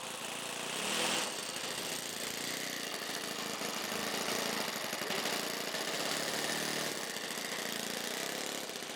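Electric motor and propeller of a small foam RC P-47 buzzing in flight, the buzz swelling and fading every second or two.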